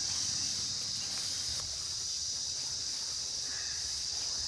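A steady, high-pitched drone of insects chirring, with faint outdoor background noise underneath.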